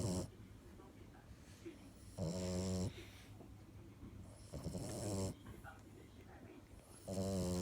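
Small bulldog snoring in its sleep: a low, buzzing snore roughly every two and a half seconds, each lasting under a second, with quiet breathing in between.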